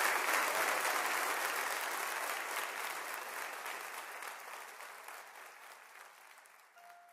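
Audience applauding, a dense patter of clapping that fades steadily away to faint.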